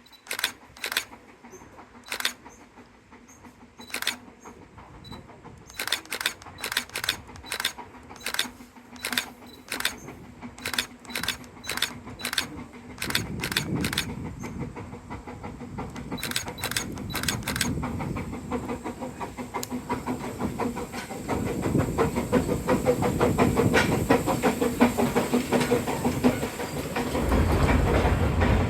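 Train wheels clicking over rail joints, first singly and then in quick groups, with a steady hum and rumbling running noise that grows louder as the train gathers speed.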